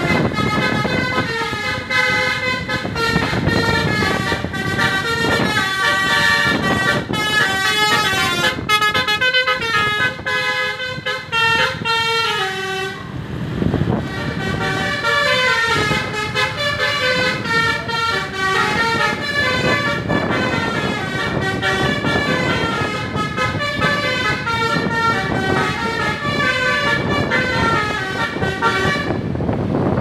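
A tour bus's basuri multi-tone telolet horn playing a fast tune of shifting horn notes over engine and traffic rumble. The tune breaks off briefly about thirteen seconds in, then starts again.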